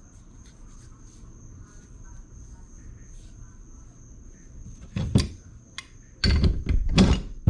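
Mostly quiet, over a steady high-pitched tone like insects; about five seconds in, and again for about a second near the end, bursts of handling noise as a lowrider's hydraulic cylinder is worked on by hand while it is being pulled apart.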